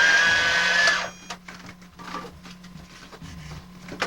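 Small electric motor in a toy cash register play-set whirring with a steady, slightly rising whine, stopping about a second in, then a few light clicks.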